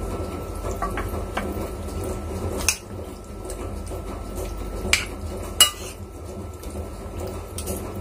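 Chicken wings being stirred into a garlic, ginger and char siu sauce marinade in a bowl, a utensil scraping and clinking against the bowl. A few sharper clinks stand out, one a third of the way in and two more close together past the middle.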